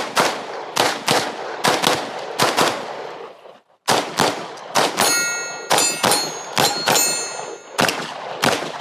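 Handgun fired rapidly in quick pairs of shots during a practical-shooting stage run, with a short pause around three seconds in. Between about five and seven seconds in, steel targets ring when hit.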